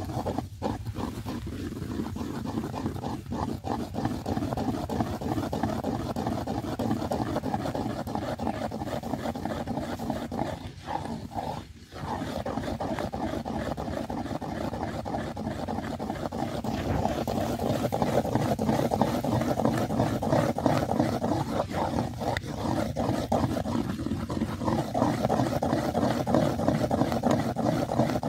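Thick date-palm jaggery being stirred fast with a bamboo stick in a terracotta bowl: a continuous, rapid churning of the sticky syrup against the clay. It stops briefly a little before halfway, then resumes and grows somewhat louder in the second half.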